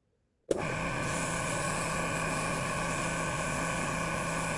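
Mini lathe motor running at a steady speed with a steady hum and whine, spinning a cork fly rod grip while 600-grit sandpaper is held against it, with an even hiss. It starts abruptly about half a second in.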